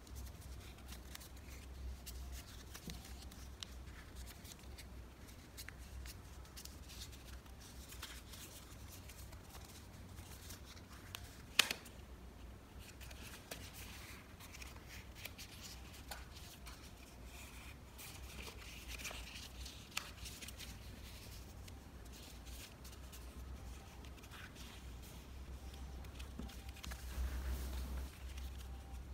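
Sheet of origami paper being folded and creased by hand: faint rustling and crinkling with small scattered clicks, and one sharper tap a little before halfway. A steady low hum runs underneath.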